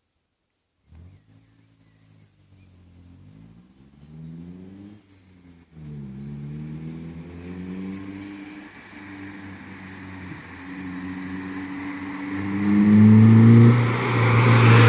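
Vauxhall Corsa B's engine and exhaust starting up about a second in and being revved, its pitch climbing and dropping back several times, then held louder and steadier near the end.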